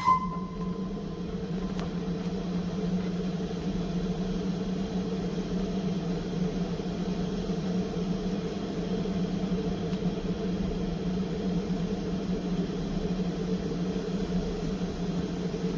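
Train's locomotive engine running with a steady, unchanging low hum. A short ringing ping sounds at the start and fades within about a second.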